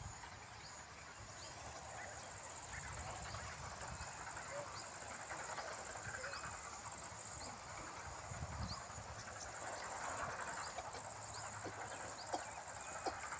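Countryside ambience: a steady high-pitched insect buzz with short, repeated bird chirps over it, and a few brief low rumbles of wind on the microphone.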